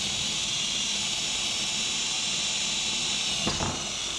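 Cordless drill running steadily, its large twist bit boring into a wooden door with a hissing sound, with a brief wavering in pitch about three and a half seconds in.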